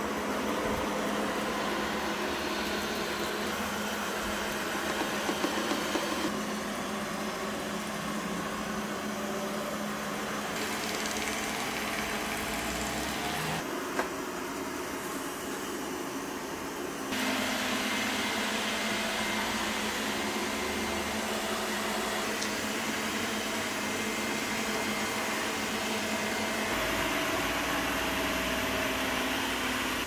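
VANiGO robot vacuum running: a steady mechanical hum with a low tone under it, shifting in level a few times and growing louder a little past halfway.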